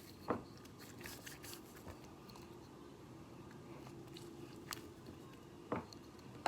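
Slime being worked by hand, giving faint sticky clicking and crackling, with a few sharper clicks, one soon after the start and two near the end.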